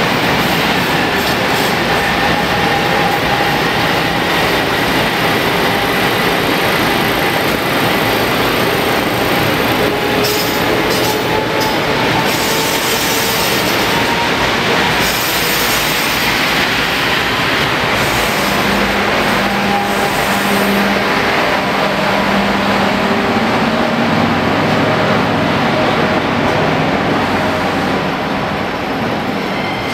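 JR EF510 electric locomotive pulling out and passing close by at low speed, then the blue 24-series sleeper coaches of the Hokutosei rolling past: a steady, loud train rumble and rattle with a faint rising whine.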